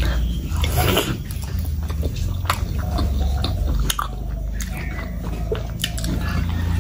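Close-miked eating sounds: a person biting into and chewing pieces of curried meat, with wet smacking and several sharp clicks.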